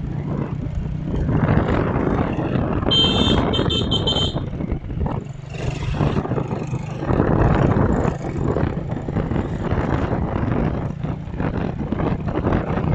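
Steady engine hum and road noise from riding a vehicle along a street, with wind on the microphone. About three seconds in, a quick series of high-pitched beeps.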